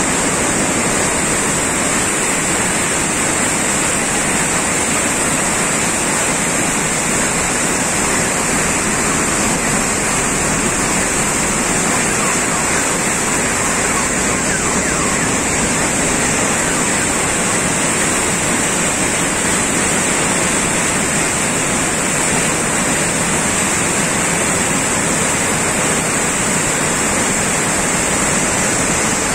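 Floodwater of a swollen, muddy river rushing and churning in a loud, steady, unbroken rush, with a steady high hiss over it.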